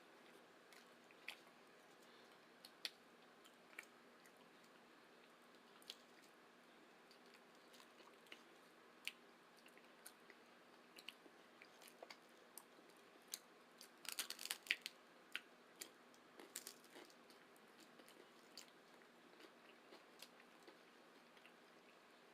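Chewing tacos: scattered sharp crunches and clicks over a faint steady hiss, with a busier run of crunching about two-thirds of the way through.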